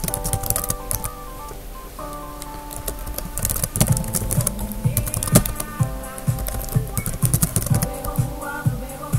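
Computer keyboard typing, quick irregular runs of key clicks, over background music with held notes.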